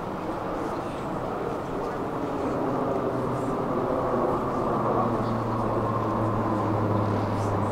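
A vehicle running, its sound slowly growing louder, with a steady low hum joining about five seconds in.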